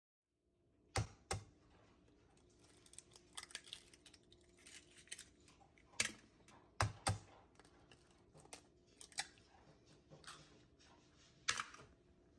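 Eggs knocked against the rim of a ceramic pie dish and cracked open: sharp knocks, mostly in pairs, with lighter clicks of shell handling in between.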